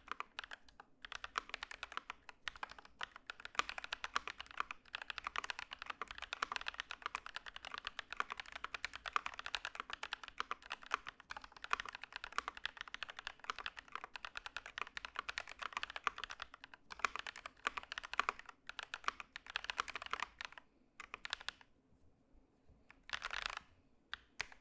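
Typing on a Keychron V1 mechanical keyboard with lubed KTT Red Wine linear switches and ABS doubleshot Cherry-profile keycaps: rapid, continuous keystroke clacks. The keyboard is tape-modded, with vulcanized rubber in place of the bottom silicone to make it less muted and more poppy. The typing stops about 21 seconds in, with one short flurry of keystrokes near the end.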